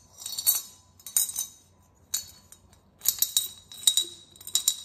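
Old silver coins clinking and rattling inside a ceramic coin bank as it is tilted and shaken, in about six short bursts of sharp, ringing clinks.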